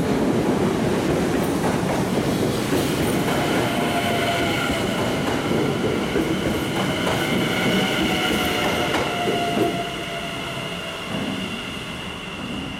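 NS Sprinter New Generation electric multiple unit running past close by as it pulls into the platform, wheels rumbling on the rails. A steady high whine joins in about three seconds in. The sound drops sharply about ten seconds in, leaving the train quieter and farther off.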